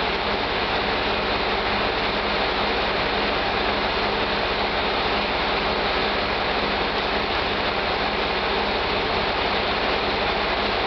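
Diesel railcar engine running steadily, heard as an even rushing noise with a constant low hum that holds the same level throughout.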